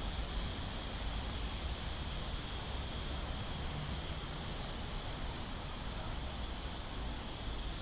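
Steady outdoor ambience: an even hiss with a constant high, insect-like buzz and a low rumble underneath, with no distinct events.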